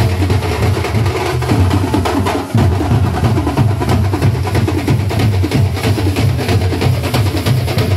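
A band of large rope-laced barrel drums beaten with sticks, playing together in a fast, dense, loud rhythm with heavy low booms, with a brief break about two and a half seconds in.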